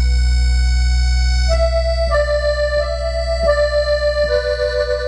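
Cumbia music playing loud through a sonidero sound system: a sustained, reedy melody of long held notes stepping downward over a steady deep bass.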